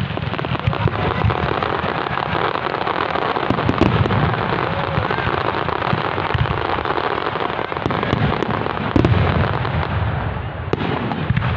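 Fireworks display going off: a dense, continuous crackle of many shells bursting, with deep booms underneath and a louder burst about nine seconds in.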